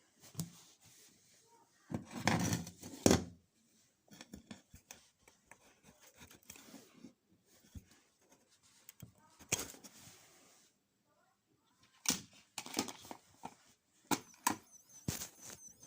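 Scattered clicks, knocks and rustles, loudest about two to three seconds in. Near the end a faint, high, wavering electronic tone begins.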